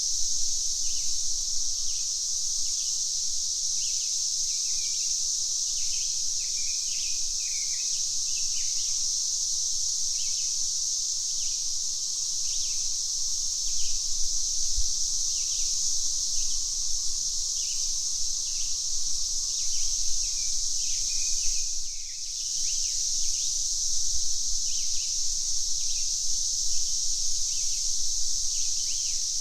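Cicadas droning in a steady, high-pitched chorus, with short bird chirps repeating over it. The drone briefly dips about two-thirds of the way through, then returns.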